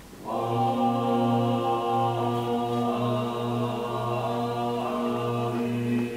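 Slow, sustained drone-like music with held, chant-like tones that enter suddenly just after the start, over a low note that swells and breaks about once a second.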